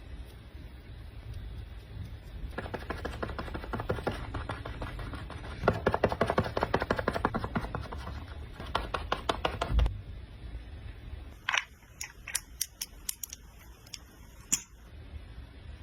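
Close-up sounds of makeup being handled and applied: a run of rapid short scratchy strokes for about seven seconds, then about eight separate sharp clicks.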